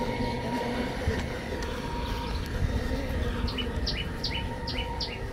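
Low steady outdoor rumble with a faint constant hum; from about three and a half seconds in, a bird calls repeatedly, short high chirps about twice a second.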